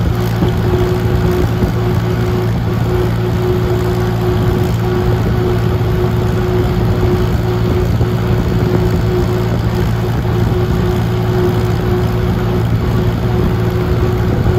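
Vintage tractor engine running steadily at a constant speed while the tractor drives along, heard from on board.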